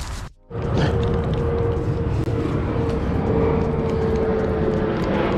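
Steady low rumble of distant engine noise with a droning hum, after a brief drop in level about half a second in.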